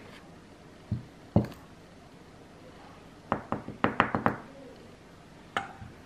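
Kitchen utensils knocking as sugar is measured out with a wooden spoon from a glass jar into a plastic measuring cup. There are two dull thuds about a second in, then a quick run of about seven light taps, and one more tap near the end.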